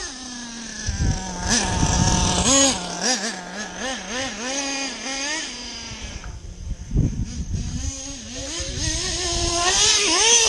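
Small glow-fuel engine of a nitro RC truck running, first held steady, then revved up and down in quick blips so its pitch keeps rising and falling. Two short low rumbles come about a second in and about seven seconds in.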